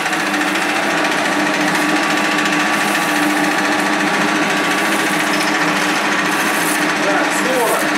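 1K62 screw-cutting lathe running steadily, a constant machine hum with a steady whine.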